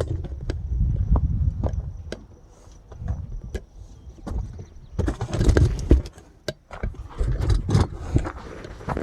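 Irregular knocks, clicks and clunks over uneven low rumbling, with no saw or motor running steadily.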